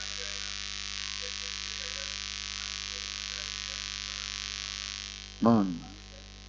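Steady electrical mains hum with a hiss over it, the hiss fading out about five seconds in. Near the end a person gives one short voiced sound that falls in pitch.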